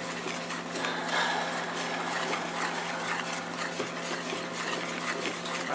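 Wire whisk beating thick pancake batter in a plastic mixing bowl: a steady, continuous stirring and scraping made of many quick strokes.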